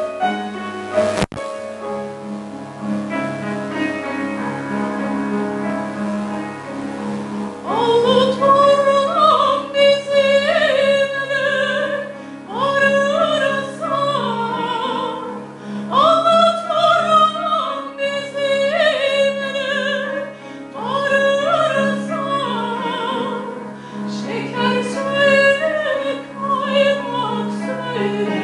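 Piano playing alone, then about eight seconds in a soprano comes in, singing with a wide vibrato over the piano accompaniment in several phrases separated by short breaths: a classical art song or aria.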